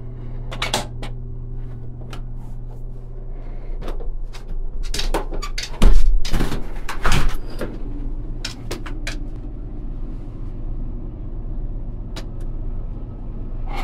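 A door thudding shut about six seconds in, followed by a couple of knocks. Scattered small clicks and a steady low hum run underneath.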